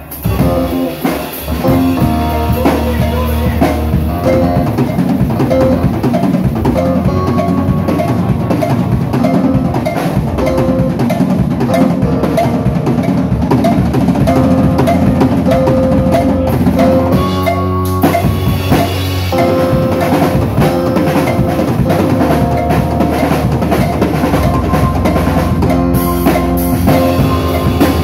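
Live rock band playing, with the drum kit's bass drum and snare prominent over bass and held guitar or keyboard notes.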